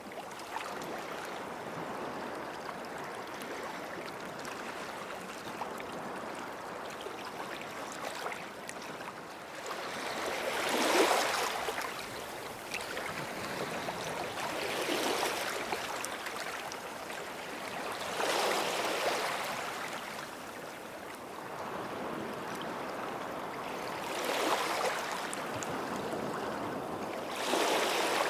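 Small sea waves washing onto the shore: a steady hiss of water with a wave swelling and fading every few seconds, five in all, the loudest about a third of the way in.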